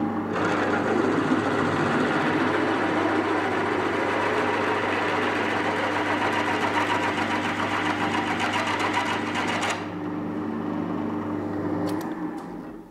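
Pillar drill running with a freshly reground twist drill boring into mild steel. The cutting noise sets in about half a second in and drops away after about ten seconds, then the motor hum dies away near the end. The drill cuts well, showing the regrind works.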